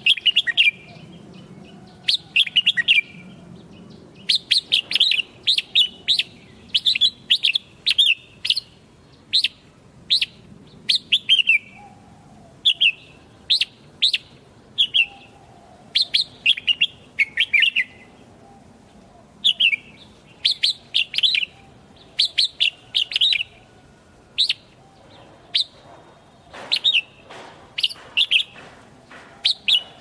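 Red-whiskered bulbul singing: short phrases of a few quick warbling notes, repeated over and over with brief pauses between them.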